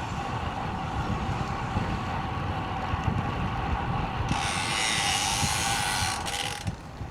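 Wind buffeting the microphone and steady tyre and road noise from a road bicycle at riding speed. Partway through, a loud hiss comes in suddenly for about two seconds and cuts off abruptly.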